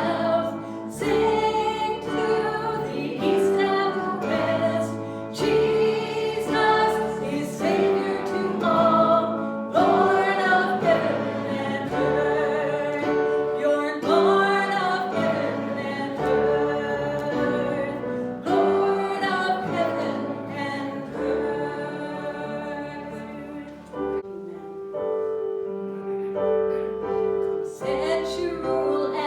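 Voices singing a worship song with instrumental accompaniment; in the last few seconds the singing thins out while the accompaniment holds steady notes.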